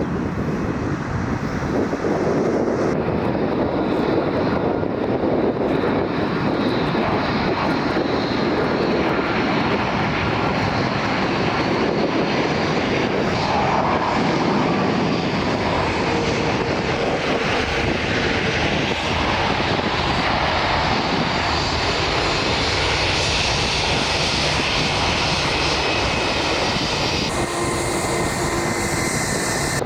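Jet noise from an Airbus A330-300's two Rolls-Royce Trent 772B turbofans on landing: a loud, steady rumble and roar with a faint high whine that drifts in pitch.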